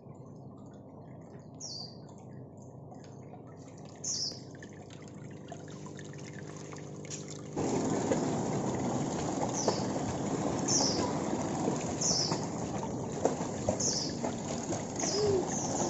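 Swimming-pool water splashing as a child kicks and paddles, with a bird chirping in short high calls again and again. The water noise becomes much louder about halfway through.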